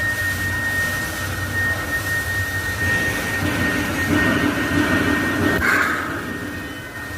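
TIG welding with argon: a steady arc hiss with a constant high whine and a low hum underneath, broken by a brief burst just before six seconds in.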